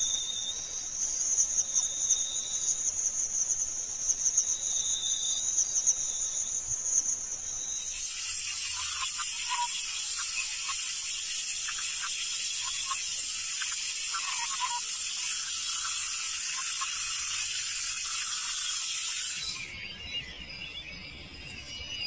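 Forest ambience: a high, pulsing trill for the first eight seconds or so. It gives way to a steady, high-pitched chorus with a few faint chirps over it, and the sound changes again a couple of seconds before the end.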